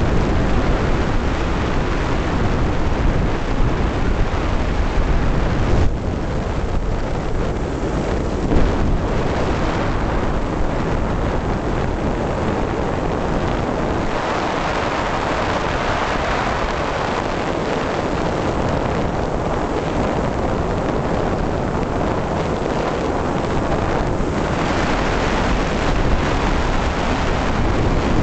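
Wind rushing over the microphone mixed with engine noise aboard a flex-wing microlight trike in flight, a dense steady rush whose low end thins for a while midway.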